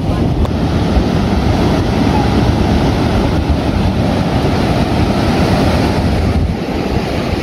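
Ocean surf breaking on the beach, a steady rushing wash, mixed with wind buffeting the microphone.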